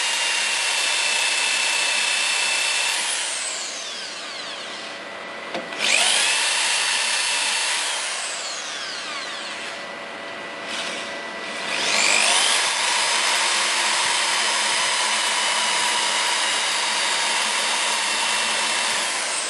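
Bosch electric drill spinning up and running in three bursts, its motor whine falling away after each as it winds down: a short run at the start, a shorter one about six seconds in, and a long one from about twelve seconds until near the end. It is drilling small countersunk marks into a lathe tailstock spindle to seat the grub screws.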